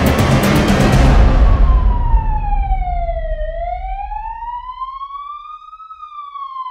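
Background music with a beat fading out over the first few seconds, giving way to one slow wailing siren tone that falls, rises and starts to fall again.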